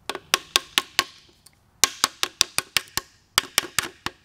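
Sharp hammer taps on a steel piston ring compressor sitting on the cylinder deck of a Mopar 383 big-block, knocking the compressor down square against the deck ahead of installing the piston. About sixteen quick taps come in three short runs with brief pauses between.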